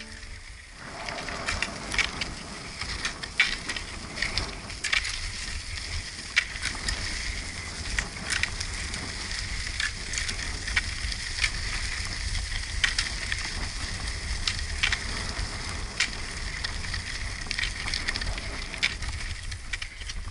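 Cross skates with pneumatic tyres rolling over loose gravel, a steady crunching hiss, with irregular sharp clicks of ski-pole tips striking the ground, one or two a second.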